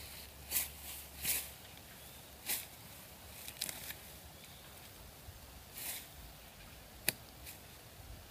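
A run of irregular short rustles, scrapes and clicks, about eight in all with no steady rhythm. A sharp click about seven seconds in is the loudest.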